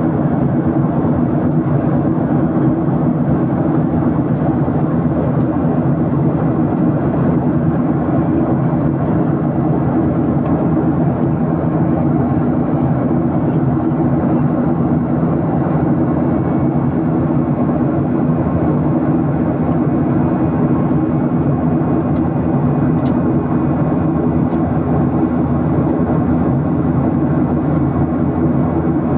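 Airplane noise: a steady, even drone that does not change.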